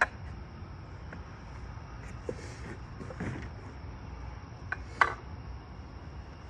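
Scattered knocks and clicks from handling and fitting the parts of a 3D buck archery target together: a sharp knock at the start, softer knocks and a brief scrape around two to three seconds in, and two more knocks near five seconds, the second the loudest.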